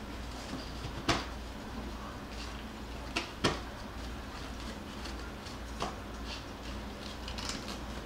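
A few short sharp clicks or knocks over a steady low hum. The loudest comes about a second in, two more come close together around three seconds in and a softer one near six seconds, with faint light ticking in between.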